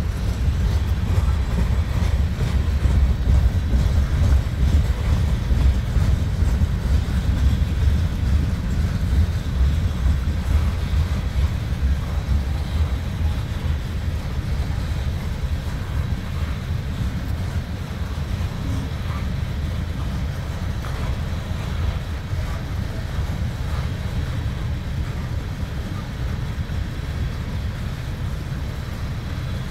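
Freight cars, empty-looking open gondolas and a covered hopper, rolling past on the rails with a steady low rumble of wheels on track. The rumble eases slightly in the second half.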